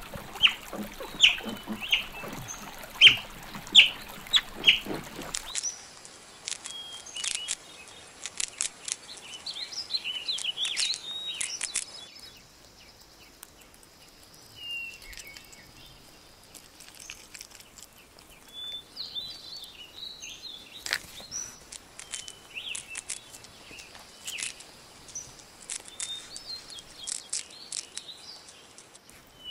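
Small birds chirping in short high calls over quiet outdoor ambience. The chirps are loudest in the first five seconds, and scattered clicks run through the rest. The background changes abruptly about five seconds in and again around twelve seconds.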